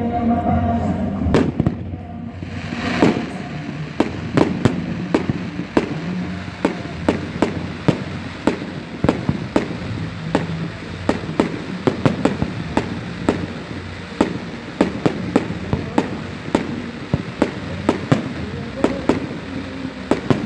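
Fireworks display: a rapid string of sharp bangs, about two to three a second, over a steady noisy rush, with a broader whoosh about three seconds in.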